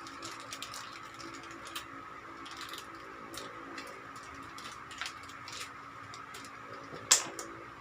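Small clicks and taps of a Canon EOS M100 mirrorless camera and its parts being handled, with one sharp click about seven seconds in.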